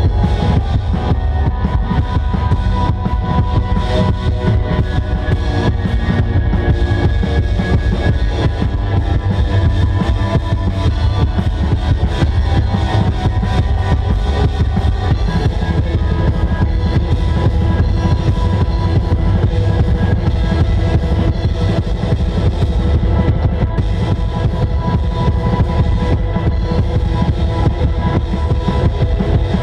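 Live post-rock band playing: a drum kit with bass drum and guitars, loud and continuous.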